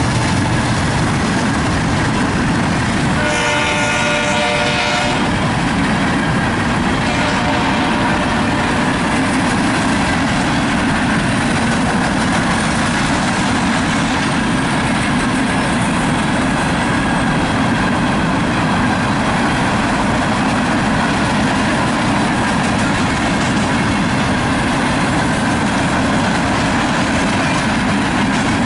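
Coke train's hopper cars rolling past with steady wheel-on-rail noise. About three seconds in, a train horn sounds for roughly two seconds.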